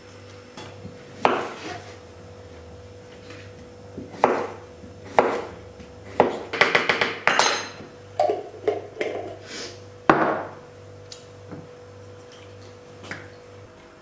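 Kitchen food-prep clatter: sharp knocks of jars, bottles and a plastic container being handled and set down on the counter, with a burst of quick rattling strokes about six seconds in. A steady low electrical hum runs underneath.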